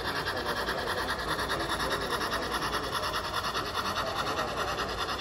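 On30-scale model steam locomotive running along a layout's track, giving a fast, even rhythmic clatter.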